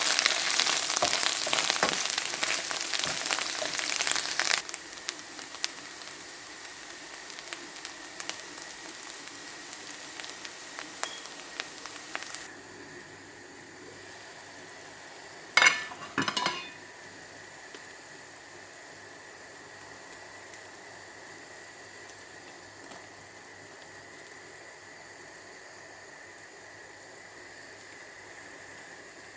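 Curry frying in a hot pan: a loud crackling sizzle that drops sharply to a quieter sizzle about four seconds in, then dies away by about twelve seconds. Two sharp clinks come about halfway through.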